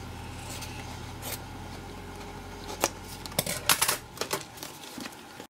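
Scissors cutting through wide black heat-shrink tubing: a few sharp snips and handling clicks, most of them bunched near the end, over a steady background noise of rain on the garage roof. The sound cuts out suddenly just before the end.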